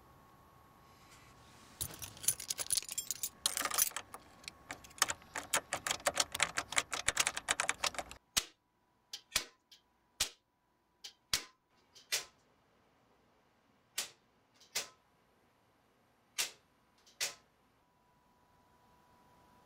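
A dense, rapid clatter of clicks for about six seconds, then nine single sharp clicks about a second apart: circuit breakers in a breaker panel being switched one after another.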